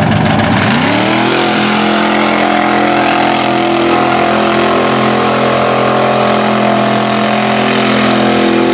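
Chevy mud truck on tractor tires under full throttle: the engine revs up about a second in, then holds steady at high revs as it pulls through the mud pit.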